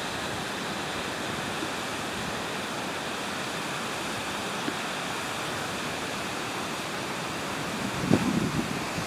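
Steady rushing outdoor ambience. About eight seconds in, uneven gusts of wind start buffeting the microphone.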